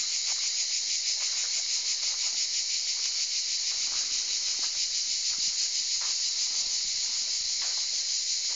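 Steady, high-pitched insect chorus with a fast, even pulse. A few faint soft knocks sound under it.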